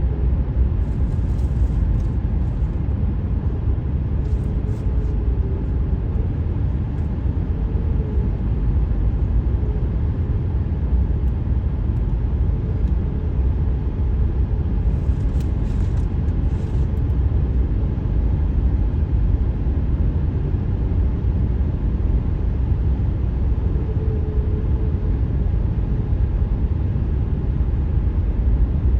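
Car tyre and road noise heard from inside the car at highway speed: a steady low rumble, with a faint hum that comes and goes a few times.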